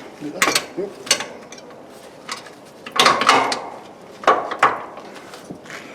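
Clanks and knocks of metal parts and tools being handled while a replacement air-ride suspension compressor is fitted to its mounting. There are a few sharp single knocks, a louder half-second clatter about three seconds in, and two more knocks soon after.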